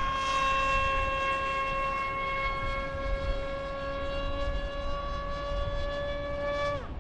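Motor of a 3D-printed RC F-22 model plane in flight: a steady high whine with a string of overtones, edging up in pitch before it drops away sharply near the end as the throttle is cut. A low rumble of wind noise runs underneath.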